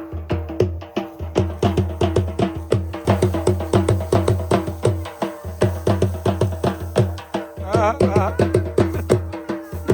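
Background music: quick, even percussion strokes over a steady low drone, with a short warbling melodic phrase about eight seconds in.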